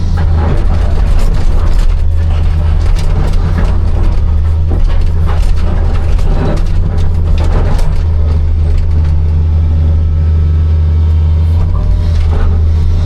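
Hitachi 260 excavator's diesel engine running steadily under working load, with scattered clanks and scrapes of the bucket digging and handling stone.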